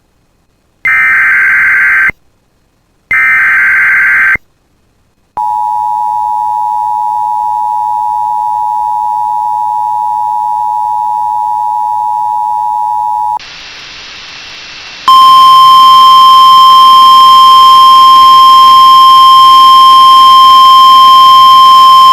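Emergency Alert System tones for a severe thunderstorm warning. Two short buzzy data bursts of the SAME header come first, then a steady two-tone attention signal lasting about eight seconds and a brief patch of hiss. From about fifteen seconds in, a loud, steady single-pitch alert tone sounds.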